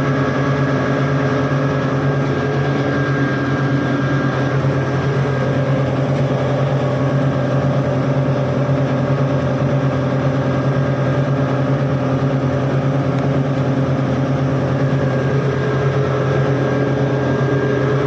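Loud, steady drone of running machinery, a constant low hum with steady higher tones over it.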